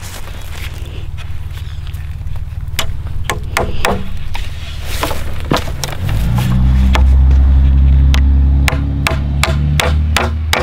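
Claw hammer driving nails into softwood framing lumber: a string of sharp strikes starting about three seconds in, irregular at first, then quick and regular, about three a second, near the end. A steady low drone runs underneath and gets louder midway.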